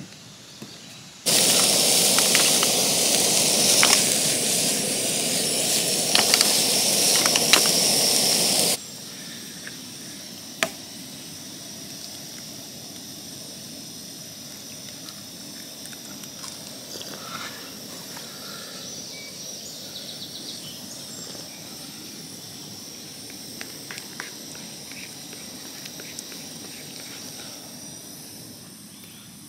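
Steady hiss of a canister camp stove's burner under a frying pan, with a few light clicks. Between about one and nine seconds in, a much louder rushing hiss cuts in and out abruptly.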